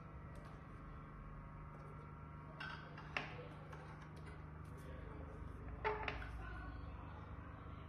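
A few light knocks and clicks from a small handheld printer and its cable being handled and fitted to a mount, the loudest about three seconds in and just before six seconds, over a steady low hum.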